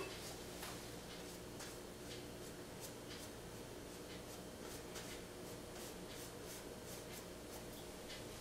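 Faint, irregular taps and scratches of a paintbrush dabbing oil paint onto a stretched canvas, over a low steady room hum.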